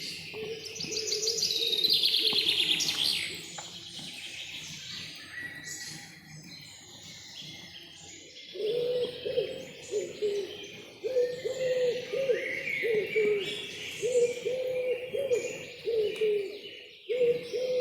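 Forest birdsong. Several birds give high chirps, with a fast, falling trill near the start. From about halfway, a bird gives a run of low, repeated cooing notes.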